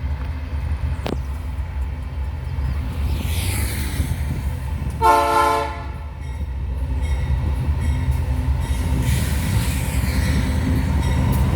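Loaded grain freight train passing, its diesel locomotives running with a steady low rumble. The locomotive's air horn sounds once, about five seconds in, for roughly a second: a chord of several tones.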